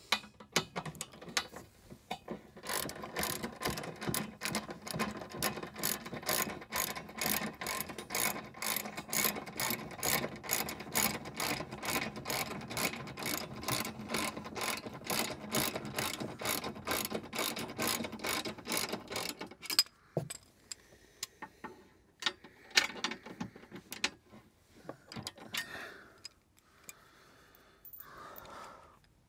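Hand socket ratchet wrench clicking steadily as it turns a bolt on the car's underside, a long, even run of quick clicks. It stops about twenty seconds in, leaving only a few scattered clicks and handling noises.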